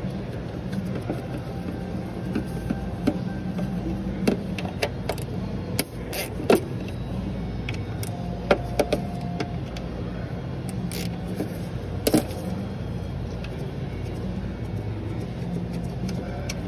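A motor running steadily with a low hum, with scattered sharp clicks and knocks over it.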